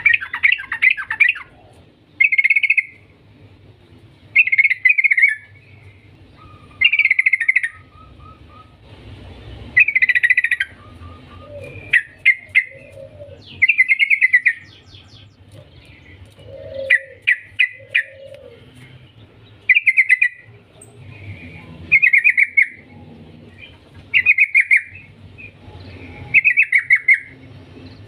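Trucukan (yellow-vented bulbul) singing loud, rapid bubbly phrases of about a second each, one roughly every two seconds. Fainter, lower notes come in a few times between them.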